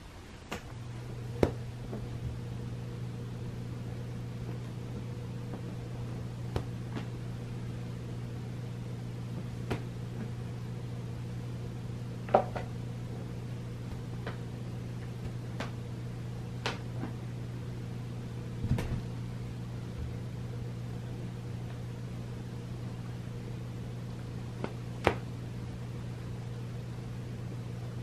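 A steady electric machine hum switches on about a second in and runs evenly, with scattered light clicks and taps over it.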